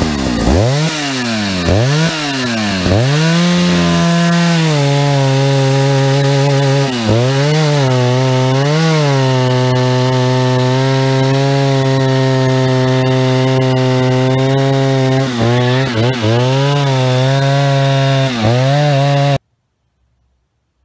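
Stihl 050 AV two-stroke chainsaw revving up and down several times, then running at a steady high speed as it cuts through a large log, with a few brief dips in engine speed. It cuts off abruptly shortly before the end.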